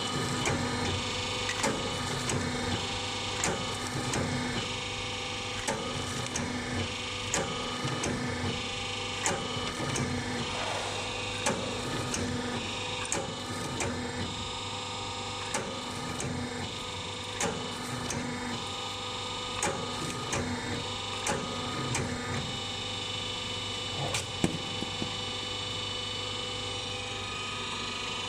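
Motor-stator cutting machine running with a steady hum, its cutter knocking through the stator's copper windings in short strokes about every two seconds while the stator is fed in by hand.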